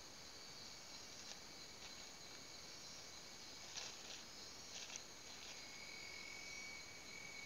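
Faint, steady high-pitched trilling of forest insects, with a lower steady insect tone joining a little past the middle and a few short chirps around the middle.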